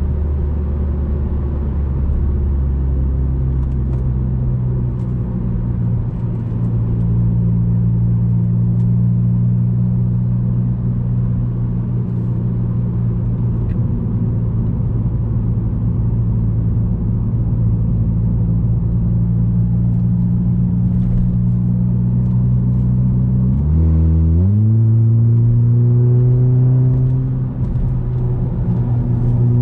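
Audi A3 8P 2.0 TFSI turbocharged four-cylinder with a 2.5-inch downpipe and catback exhaust, running on the move at steady revs with a low, even engine tone. About 24 seconds in the revs climb quickly within a second and then hold higher.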